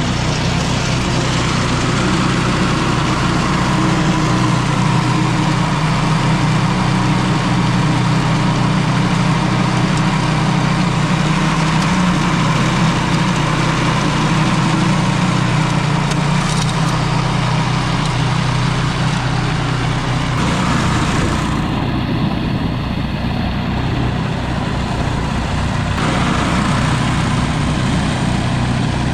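Gasoline engine running steadily, with a change in tone about 20 seconds in and again about 26 seconds in. The owner thinks it is starving for fuel and suspects it is iced up.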